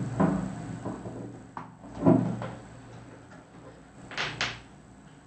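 Handling knocks at a soldering bench: a few soft knocks, a louder dull thump about two seconds in, and two sharp clicks in quick succession about four seconds in, as wires, a switch and a soldering iron are handled around a metal helping-hands clamp.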